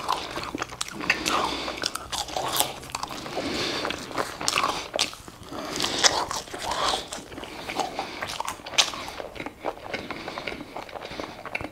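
A person chewing a mouthful of burger and french fries: wet mouth sounds with many short, irregular clicks.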